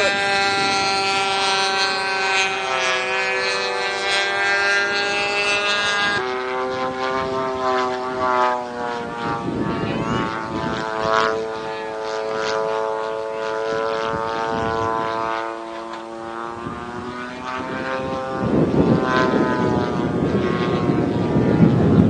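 Radio-controlled Pitts biplane's model-aircraft engine and propeller droning in flight, its pitch dropping sharply about six seconds in and then shifting up and down as it manoeuvres.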